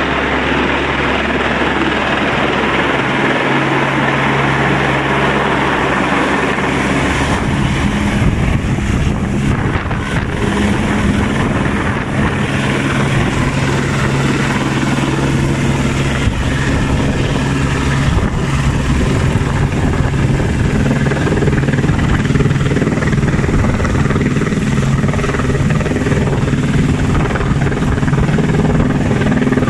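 Rescue helicopter flying close overhead, its rotor and engine running loud and steady, with the low tones growing steadier about seven seconds in.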